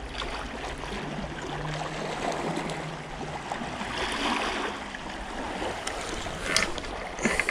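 Sea water washing and lapping against the rocks of the shoreline, a steady noise of moving water. Near the end come a few sharp clicks and knocks as a fishing rod is handled.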